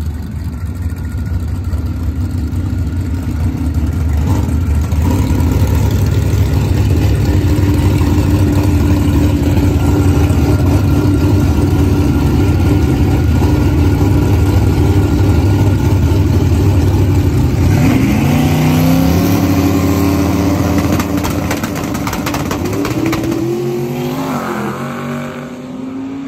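Turbocharged LSX V8 drag-race pickup running loud and steady as it rolls up to the line after its burnout. About 18 s in it launches: the engine note climbs, drops at a gear change and climbs again, fading as the truck pulls away down the strip.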